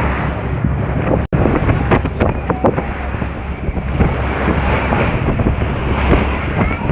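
Wind buffeting the microphone over the wash of sea waves. The sound cuts out for an instant about a second in.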